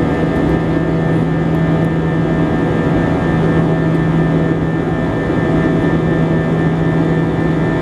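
Steady in-flight cabin noise of an Airbus A320: the drone of its IAE V2527 turbofan engines and rushing airflow, with a constant low hum and a few steady higher tones.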